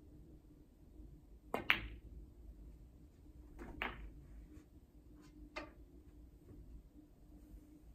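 Snooker shot: the cue tip strikes the cue ball, and a split second later the cue ball clicks sharply into a red. Another sharp click follows about two seconds later, then a few fainter knocks as the balls run on.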